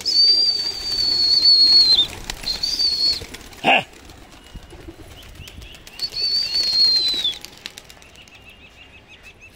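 Domestic pigeons' wings flapping as the flock takes off, over a loud, steady high whistle held about two seconds, a shorter one, and another about six seconds in, each ending in a falling drop. A brief sharp sound comes near four seconds in.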